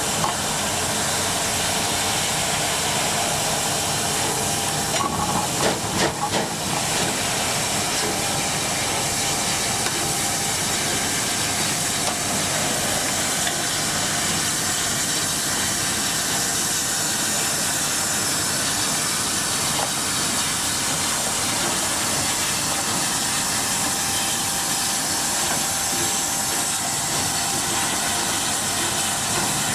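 Steam locomotive 34027 'Taw Valley', a Bulleid West Country-class 4-6-2, hissing steam steadily and loudly. A few short, sharper sounds break in about five to six seconds in.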